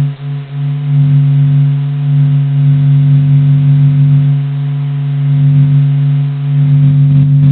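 A steady, low electronic drone with many overtones, presented as the sound of the Sun, a sonification of solar data. It dips briefly near the start and then swells and eases slowly.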